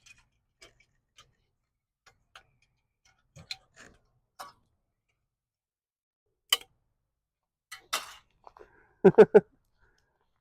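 Sparse light clicks and sharp knocks, the loudest a quick run of three near the end, from a shot-up tin can being handled.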